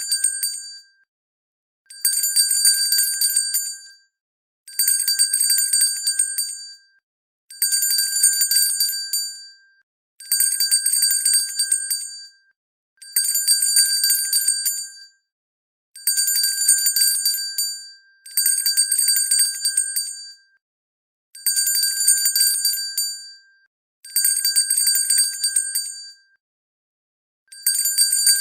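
Hand bell shaken in repeated bursts of rapid ringing, each about two seconds long, with a brief silence between bursts, about every three seconds.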